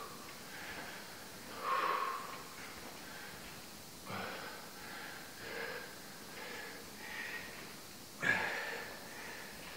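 A man's breathing under exertion during lateral lunges: short, sharp exhales about once a second, with louder ones about two seconds in and near the end.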